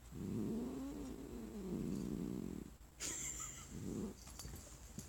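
Domestic cat growling low: one long wavering growl of about two and a half seconds, then after a brief rustle a short second growl. It is the cat's displeasure at being petted while on a lap.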